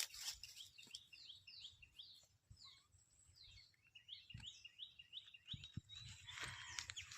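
Small birds chirping faintly, a rapid run of short falling notes several times a second. Near the end a crunching noise starts.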